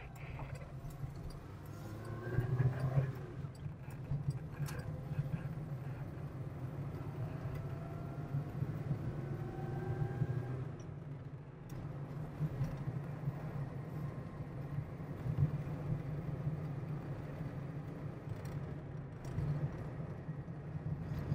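Citroën Visa's 1.1-litre four-cylinder engine pulling away and accelerating up through the gears, heard from inside the cabin. The engine note rises twice as the revs climb and drops at the gear changes, over a steady engine and road drone.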